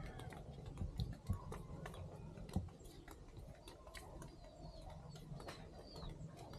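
Faint outdoor ambience: small birds chirp in short repeated calls from about midway on, over a low steady hum. A few sharp clicks come in the first few seconds.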